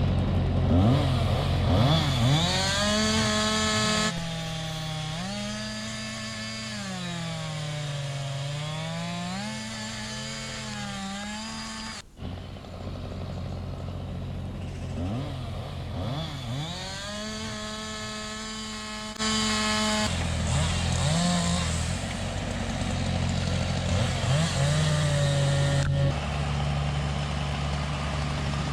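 A motor engine running and revving, its pitch rising and falling smoothly over a few seconds at a time, with sudden changes where the recording is cut.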